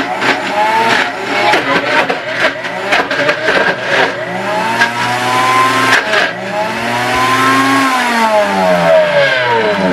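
An Amzchef countertop blender's motor running its automatic smoothie program. It is uneven and choppy for the first few seconds, then speeds up and slows down in two long swells, its pitch rising and falling.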